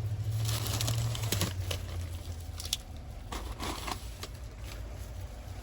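Rustling, crinkling and light tapping of a takeout bag being handled and set down, with a low steady hum that fades out about a second and a half in.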